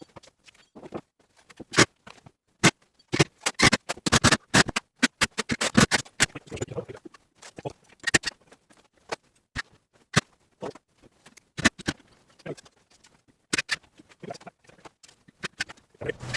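Fast, irregular run of sharp clicks, knocks and clatters from tools and boards as a wall rack is built, the workshop sound sped up.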